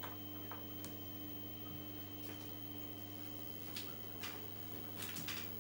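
Steady electrical hum from the powered speakers and computers, with a faint high whine over it. A few light clicks and rustles of handling come through, the strongest cluster near the end.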